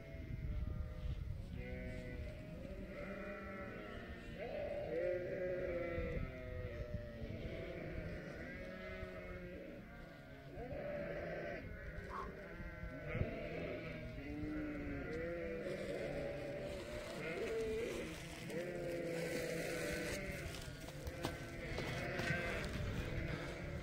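A flock of sheep bleating, many overlapping calls throughout.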